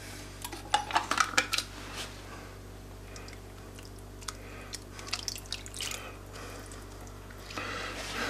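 A plastic tub of whipping cream being opened and poured into a pot of thick soup: several sharp plastic clicks and crackles in the first two seconds, then soft pouring and dripping with a few small ticks. A steady low hum runs underneath.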